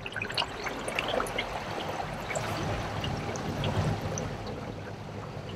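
Water splashing and trickling along the metal hull of a jon boat under way and turning, many small splashes over a steady wash, with a low steady hum underneath.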